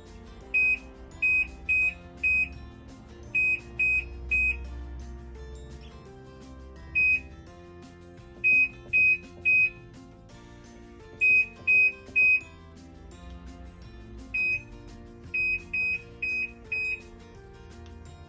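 Short electronic beeps from the Nitori NT80J1 washing machine's control panel, about twenty in irregular groups of one to four, each at the same high pitch, as buttons are pressed to set it up. The beeps are the loudest sound, over background music.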